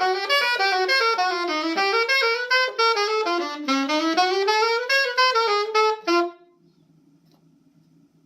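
Saxophone playing a quick melodic run of notes, stopping abruptly about six seconds in, after which only a faint low hum remains.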